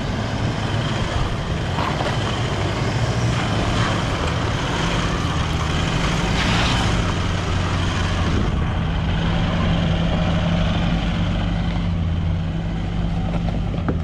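A four-wheel-drive's engine running steadily at low revs on a rough off-road track, its note stepping up and down a few times.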